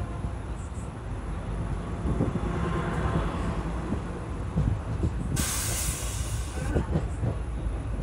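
Passenger train running along the track, heard at an open window: a steady low rumble with scattered clacks of wheels over rail joints. A train passes close by on the next track, and just past halfway a sharp rush of hissing air lasts about a second and a half.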